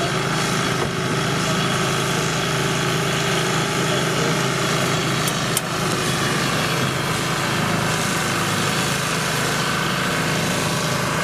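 A motor running steadily, with an engine-like drone and hum that does not change.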